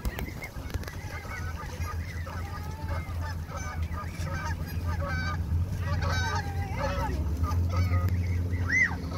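A flock of Canada geese being fed, giving many short honks and calls one after another, with one louder call near the end, over a steady low hum.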